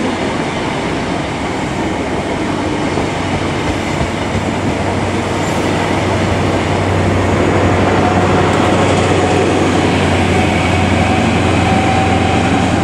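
Class 43 HST running past: the coaches' wheels rumble and click steadily over the rail joints, then the rear Class 43 diesel power car's engine hum grows louder over the second half as it draws near, with a faint whine coming in over the last few seconds.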